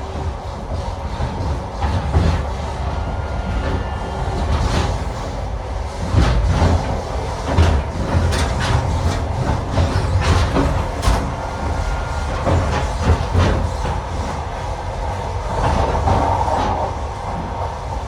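Passenger train running on the track: a steady low rumble with irregular sharp clacks of the wheels over rail joints, and a few brief thin squeals.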